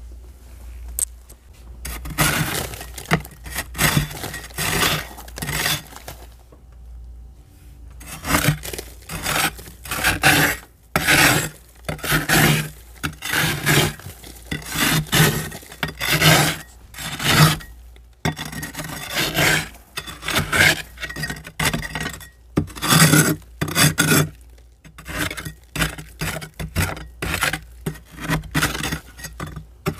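A metal scraper scraping thick frost build-up off the inside walls of a freezer in repeated rasping strokes. There is a pause of about two seconds near the start, and then the scraping goes on steadily.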